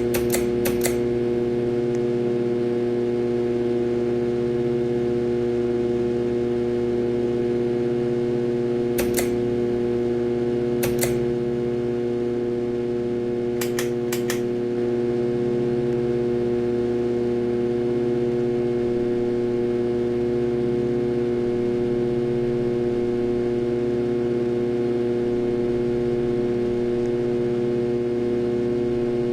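Harbor Breeze Ocracoke ceiling fan motor running with a very loud, steady hum, the sign of a bad motor. A few sharp clicks come near the start and a few more in the first half.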